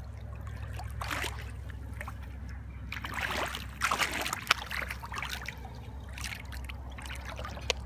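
A sand scoop digging in wet sand and water: irregular sloshing and trickling with scraping swishes, and a couple of sharp clicks, the loudest about halfway through.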